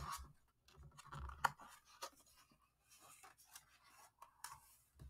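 A picture-book page being turned by hand: paper rustling and fingers brushing across the pages in a few short scratchy bursts, the loudest about a second and a half in.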